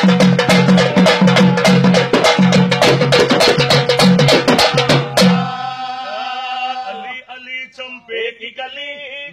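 Urdu devotional song with a fast, dense drum beat over a held tone, cutting off suddenly about five seconds in. A quieter chanting voice with long held notes follows.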